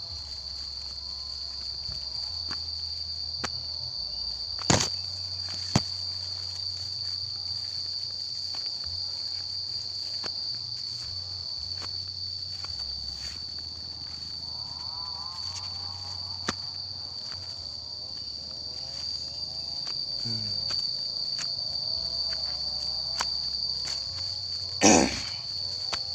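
Insects shrilling on one steady high note. A few sharp knocks cut across it, the loudest near the end.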